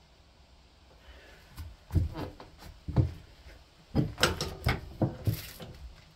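Hand tools knocking on the lawn tractor's steel steering parts as a socket ratchet and wrench are fitted to the steering link nut: single sharp knocks about two and three seconds in, then a quick cluster of clanks.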